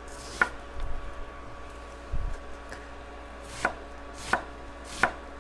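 Kitchen knife slicing through an onion, each cut ending in a sharp knock on the cutting board. There is one cut about half a second in, a couple of softer knocks after it, then three cuts in quick succession near the end.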